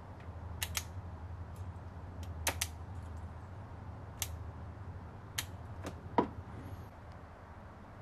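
Sharp clicks, several in quick pairs, of a golf cart's three-way ignition and lights switch being turned by hand through its positions, over a low steady hum.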